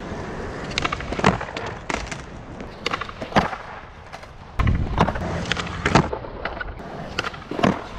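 Skateboard wheels rolling on a smooth rink court, broken by a string of sharp clacks and slaps as the board hits the ground during tricks. The rolling gets louder from about halfway through.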